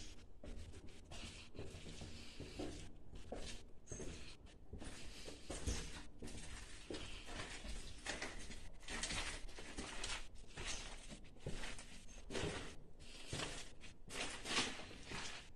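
Footsteps scuffing and crunching over a debris-strewn floor in empty rooms, an irregular run of scrapes and light knocks.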